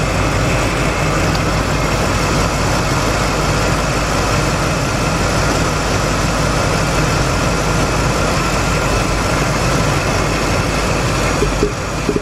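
2004 Lincoln Navigator's 5.4-litre V8 idling steadily with its number 4 ignition coil unplugged, so that cylinder is not firing, on an engine that already runs rough with a misfire.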